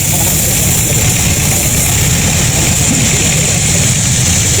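Sawmill machinery running steadily: a constant low hum with a thin steady high whine over it, unchanging throughout.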